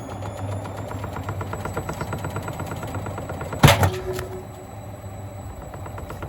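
Gorenje washing machine running with bricks in its drum: a steady motor hum with fast, even rattling, and one loud bang with a short metallic ring a little under four seconds in.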